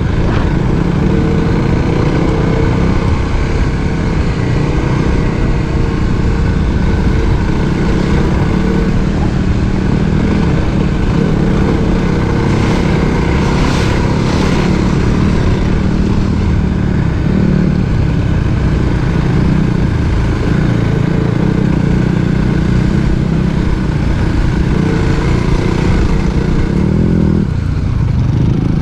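Dirt bike engine running under way as the bike is ridden over soft dirt, loud and fairly steady with no big revs.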